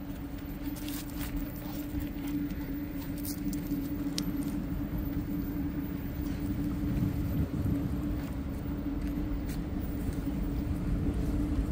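Steady low hum and rumble of background road traffic, with a few faint clicks.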